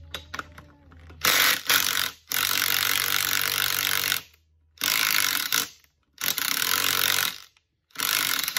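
Cordless 1/4-inch impact driver with a 9/16 socket hammering on dry axle-end nuts in about six short bursts with brief pauses between. The nuts are being run in and out a little at a time to cut dirt out of the threads rather than run straight off.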